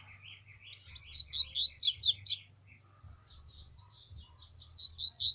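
Double-collared seedeaters (coleiros) singing: a fast phrase of quick high notes that sweep up and down about a second in, a few soft notes, then another fast phrase near the end.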